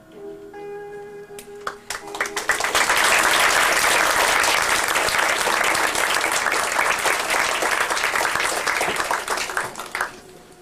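Audience applauding: a dense patter of clapping that builds about two seconds in, holds, and dies away near the end, over soft music.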